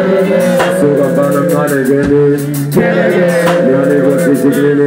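Loud live hip hop performance through a PA system: a backing track of held synth tones and drum hits, with a rapper's voice over the microphone.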